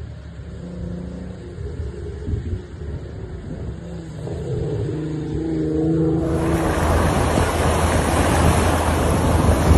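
A steady low rumble, then about six seconds in a sudden change to a loud, even roar of strong wind and rain, with wind buffeting the microphone.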